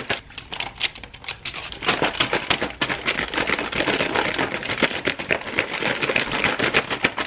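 A bowl of rice and chicken covered in plastic wrap and aluminium foil being shaken, with a fast, uneven rattling and crinkling that gets busier about two seconds in.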